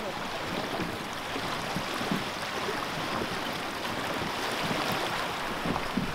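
Sea water lapping and sloshing close by: a steady splashing hiss with small irregular splashes.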